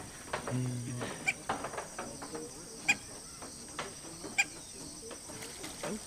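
Steady high-pitched insect chirring, with a short sharp chirp repeated about every second and a half and a brief low hum about half a second in.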